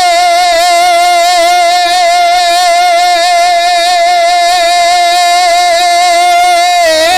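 A man's singing voice holding one long, high note with a steady vibrato in a naat recitation. Near the end the held note breaks into a moving melodic line.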